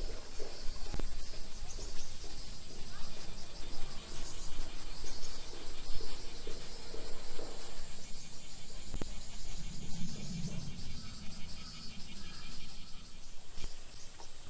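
Cicadas singing in a steady, high-pitched chorus.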